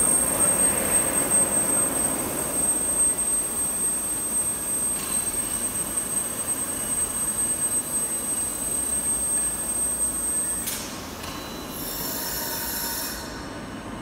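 Automated overhead gantry robot with a vacuum lifter travelling along its rails: a steady high-pitched drive whine over a mechanical rumble. The whine cuts off about eleven seconds in, followed by a second or two of different tones as the machine changes motion, then a quieter hum.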